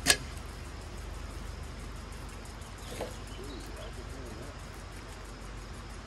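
One hard knock of a long-handled hammer blow just after the start, a second later than a like blow before it, then a lighter click about three seconds in, over a steady low hum.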